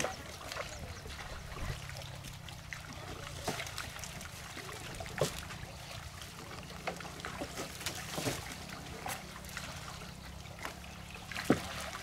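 Water trickling and splashing as a fishing net is hauled and lifted through shallow pond water, with a few sharper splashes standing out.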